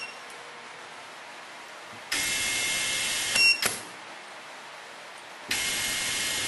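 KILEWS SKD-BE brushless electric screwdriver: a short beep from its keypad, then the motor runs twice for about a second and a half each, driving a screw. Each run stops with a sharp click as the driver shuts off at the set torque, with a short beep from the built-in screw counter confirming the screw is fastened.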